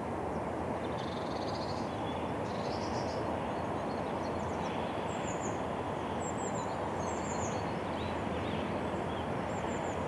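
Steady low outdoor background noise, with a few faint, high bird chirps scattered through, mostly in the middle.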